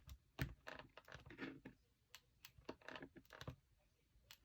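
Faint, irregular light clicks and taps, about a dozen scattered across a few seconds.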